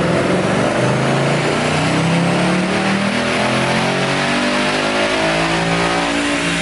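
Ford Mustang GT's 5.0 V8 running wide open on a chassis dyno, its pitch climbing steadily as it revs through the pull.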